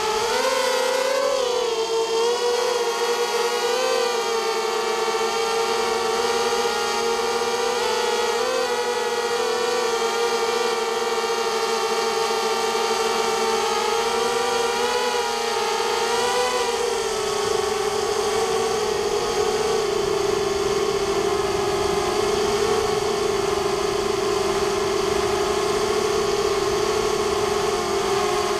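Brushless motors and propellers of a small carbon hexacopter whining in flight, the pitch rising and falling with throttle changes, then holding steadier and a little lower in the second half.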